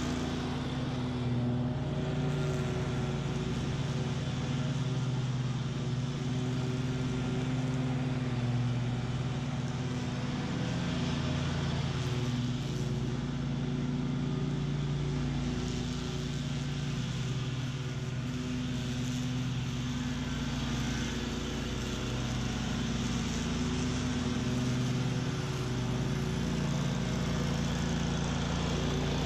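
Bob-Cat QuickCat 36-inch stand-on mower running steadily, its engine and blades working through tall, thick weeds.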